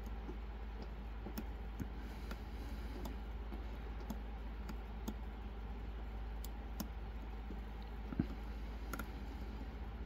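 Light, scattered metallic clicks from a lock pick and tension wrench working the pin stacks inside Cajun Lockpick's Silver Bullet lock, about one a second, with a sharper click about eight seconds in, over a steady low hum.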